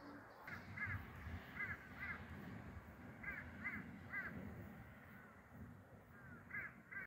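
A crow cawing in short runs of two or three calls, with a pause of about two seconds before the last pair. A low rumble runs underneath.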